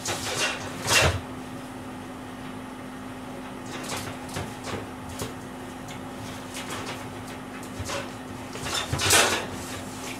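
Kitchen handling noises: two louder knocks or rattles, about a second in and near the end, with a few lighter taps between, over a steady low hum.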